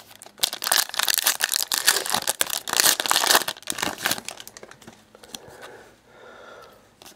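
Foil wrapper of a Panini Prizm NASCAR trading-card pack being torn open and crinkled by hand: a dense crackle of sharp crinkles for about four seconds, then fainter handling.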